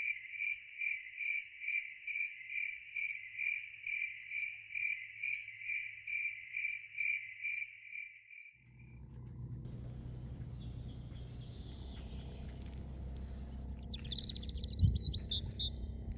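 A cricket-like insect chirping in an even pulse, about two and a half chirps a second. About eight seconds in it cuts to a steady outdoor rumble with a few short bird chirps and a single knock near the end.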